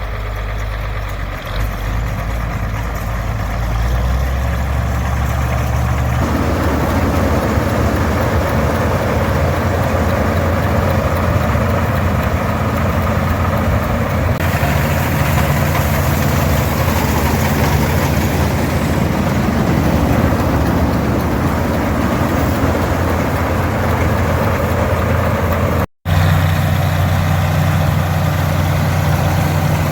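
A vehicle engine running steadily, getting louder and fuller about six seconds in, with a sudden brief cut near the end.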